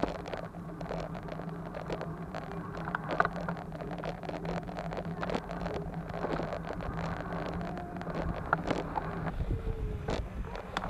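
Rattling and knocks of a child's bicycle rolling over rough concrete, picked up by a camera mounted on its handlebars, with wind on the microphone and a steady low hum that stops about nine seconds in.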